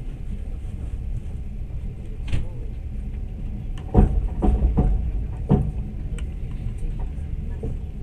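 Steady low rumble of a moving train heard from inside the carriage. A single knock a little past two seconds in and a quick run of four sharp knocks about halfway through, typical of wheels striking rail joints.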